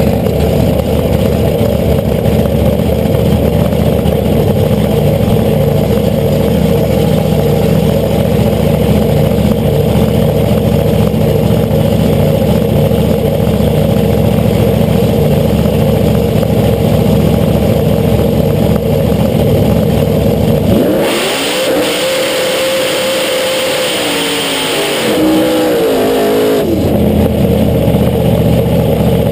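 Supercharged V8 funny car engine running loudly at idle, heard right beside the blower. About two-thirds of the way through it is revved up, held for a few seconds and let back down to idle.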